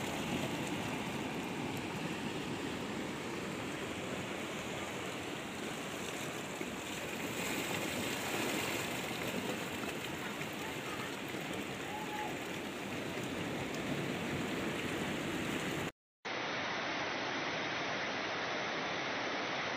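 Muddy floodwater rushing in a steady torrent. About sixteen seconds in it cuts out for a moment, then the same rushing carries on, sounding duller.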